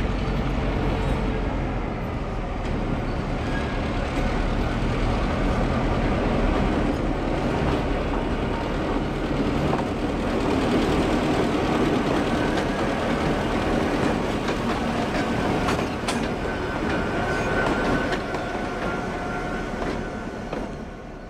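Two Victorian Railways T class diesel-electric locomotives running light engine past at low speed, their diesels running steadily. They are loudest about halfway through as they pass, then fade away at the end.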